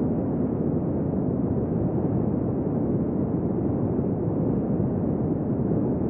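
Desert wind blowing steadily: a low, dull rush of wind noise, even in level, with no gusts or other sounds standing out.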